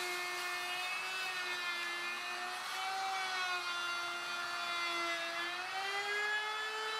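Handheld wood router running at full speed while cutting a rabbet along the inside edge of a wooden picture frame. It gives a steady high whine whose pitch dips and recovers as the bit takes load in the cut, rising slightly near the end.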